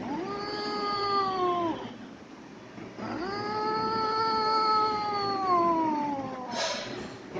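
A cat meowing in two long, drawn-out calls, each sliding slowly down in pitch, the second longer than the first; a short burst of noise follows near the end.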